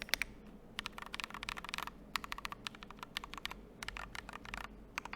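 Typing on a GMMK Pro mechanical keyboard fitted with thin Glorious dye-sub PBT cherry-profile keycaps: fast runs of key clicks in short bursts, with brief pauses between them.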